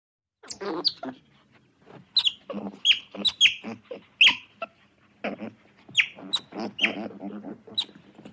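Sea otter floating on its back with its paws at its mouth, giving about a dozen short, high squeaky chirps that drop sharply in pitch. Between the chirps there are choppy crunching or smacking sounds.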